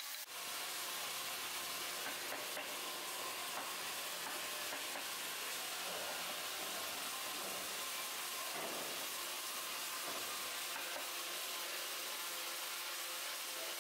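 Hand sanding of a carved wooden sculpture: abrasive rubbing over the wood, making a steady scratchy hiss.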